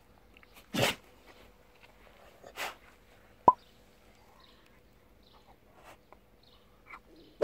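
Akita dog sneezing: one sharp sneeze about a second in and a softer one a couple of seconds later, with small snuffles between. A single sharp click about three and a half seconds in is the loudest sound.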